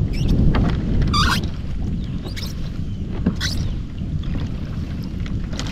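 Water splashing and sloshing against the side of a kayak as a striped bass is held alongside and towed through the water to push oxygen over its gills, with a few brief splashes over a steady low rumble.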